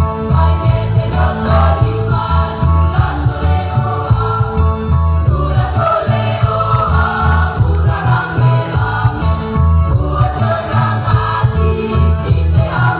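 A school choir sings a song in parts over a steady low beat.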